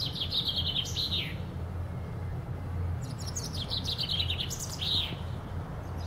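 Common chaffinch singing: a fast run of notes dropping in pitch, ending in a quick flourish. The end of one song fills the first second or so, and a full song follows about three seconds in.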